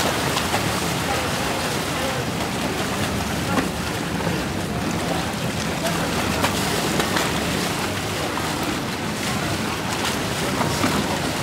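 Small passenger boat's engine running with its propeller churning the water, heard as a steady low hum under a constant wash of water, with wind on the microphone.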